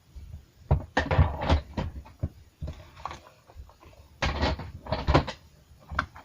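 Knocking and clattering of things being handled, in two bursts about a second in and about four seconds in, with a single knock near the end.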